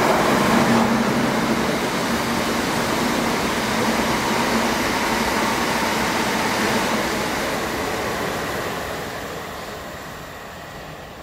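A diesel train passing close by at speed: a loud rail rumble with a steady engine hum that fades away over the last few seconds as it draws off.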